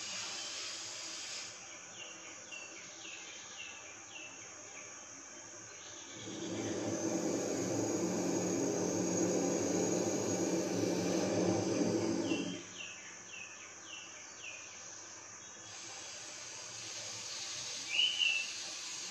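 A long, slow breath through the nose for about six seconds in the middle, as in alternate-nostril breathing (anulom vilom pranayama). Behind it, insects trill steadily and a bird calls in two quick rows of short chirps, with one more chirp near the end.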